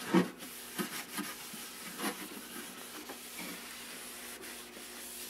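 A rag wet with mineral spirits rubbed over the sanded wooden top of a Philco 38-62 radio cabinet, in a series of short wiping strokes, the first the loudest.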